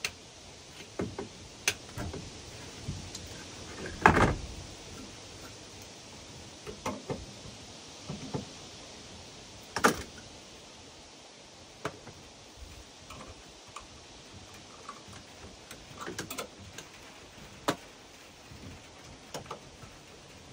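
Scattered, irregular knocks and clicks over a steady background hiss, with one heavier thump about four seconds in and a sharp knock near ten seconds.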